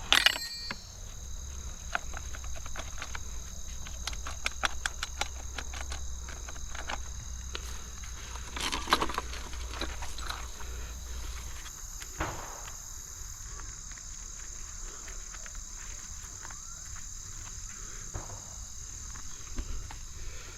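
Outdoor ambience: a steady high-pitched insect chorus, with scattered clicks and crackles throughout and a low rumble that stops about twelve seconds in.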